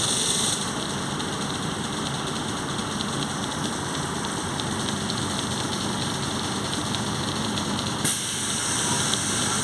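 Volkswagen 17.230 OD city bus running, its transmission roaring loudly. There is a short hiss near the start, and a click followed by another hiss near the end.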